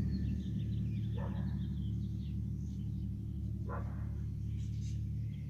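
Steady low electric motor hum from pool equipment, with birds chirping faintly in the background.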